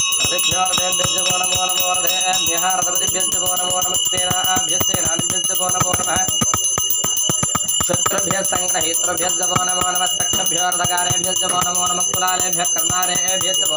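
Puja hand bell rung rapidly and without a break, its clapper striking many times a second, with voices underneath.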